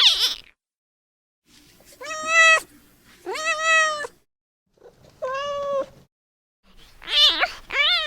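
A young kitten meowing over and over: about five high meows, each under a second long, with short pauses between them. It is a newborn kitten calling for its mother.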